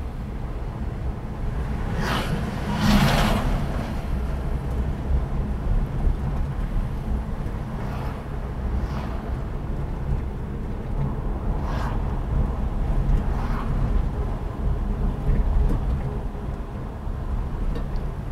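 A car driving through city traffic: a steady low rumble of engine and road noise, with a louder swell of noise about two to four seconds in and a few shorter ones later.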